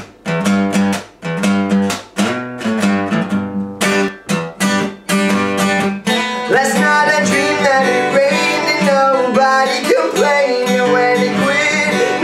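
Acoustic guitar playing chords in short, separate strokes. About halfway through, a man's voice comes in singing over the guitar.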